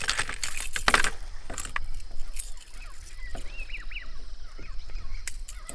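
Hard plastic fishing lures clattering against each other and the plastic tackle trays as one is picked out, a dense rattle for about the first second. A few short bird calls follow about three seconds in, over a low steady rumble.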